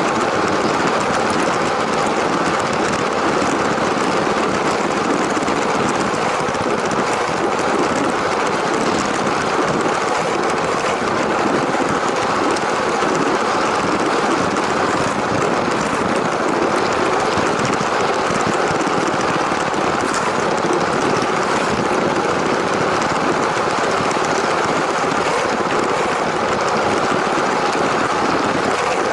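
LEGO train running along plastic track: its small electric motor and gearing, with the plastic wheels rolling over the track, make a steady noise that keeps an even level throughout.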